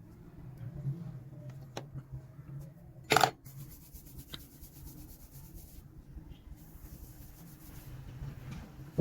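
Small handling sounds: a couple of light clicks and one louder short knock about three seconds in, over a low steady hum.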